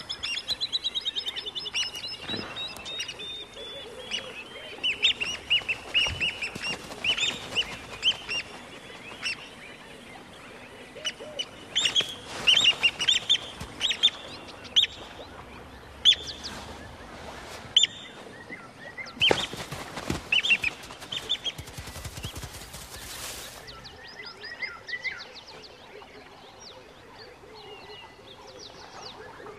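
White-crowned lapwing (plover) giving loud, sharp alarm calls while mobbing a monitor lizard, a predator of its eggs. It opens with a fast run of piping notes, then gives single and clustered shrill calls. Two brief rushes of noise come about two-thirds of the way through.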